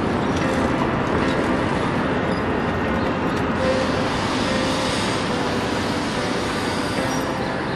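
A steady, dense background noise track with a traffic-like rumble and hiss and no distinct events.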